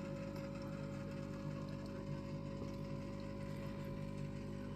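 Aquarium pump running with a steady hum.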